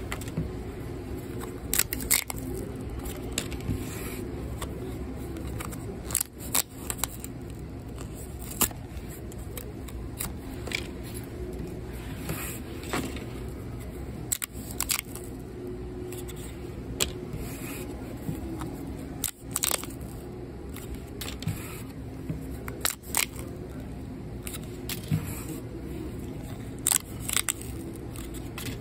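Cardboard pull-tab tickets being torn open by hand: irregular sharp snaps, crackles and paper rips as the tabs are pulled back and the cards handled. Under them runs a steady low hum.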